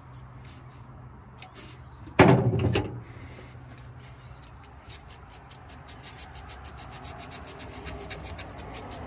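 Sandpaper being rubbed back and forth between the corroded contact points in a 1950 Ford flathead V8's distributor to clean them, a quick run of short rasping strokes, several a second, that starts about five seconds in. A brief loud knock about two seconds in.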